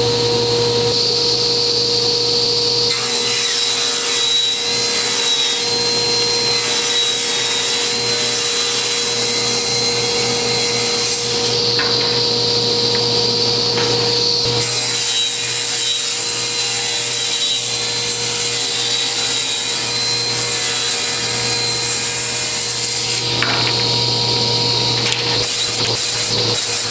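Table saw running steadily, its spinning blade ripping walnut boards lengthwise: a constant motor and blade hum under the hiss of the cut. The cutting noise shifts twice, about halfway through and near the end, as the board moves through the blade.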